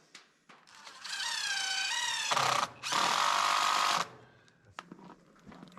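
Cordless power drill driving a screw into wood, in two runs: a whine for about a second and a half, a brief stop, then a louder second run of about a second as the screw is driven home.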